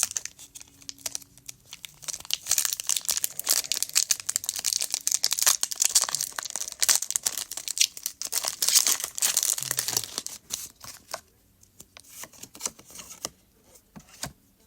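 Pokémon card booster pack's crinkly plastic-foil wrapper being torn open and crumpled, a dense crackling for about ten seconds, then dropping away to a few light clicks near the end.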